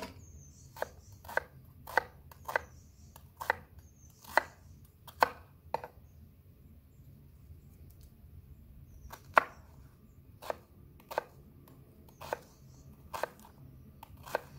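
Kitchen knife cutting an onion on a wooden cutting board: single sharp knocks of the blade on the board, roughly one every half second to a second, with a pause of a few seconds in the middle.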